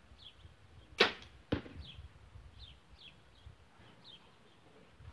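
Compound bow fired with a hinge release: a loud sharp snap of the string about a second in, followed half a second later by a second sharp hit, the arrow striking the target. Small birds chirp faintly in the background.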